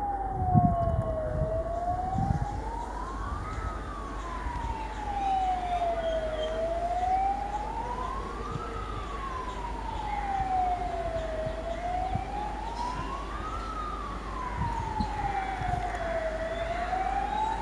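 A siren wailing, its pitch rising and falling slowly about once every five seconds. A few low thumps sound in the first couple of seconds.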